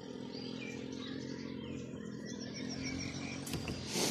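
Small birds chirping outdoors, with a short quick trill of evenly spaced high notes partway through, over a steady low hum. A sharp knock sounds near the end and is the loudest thing heard.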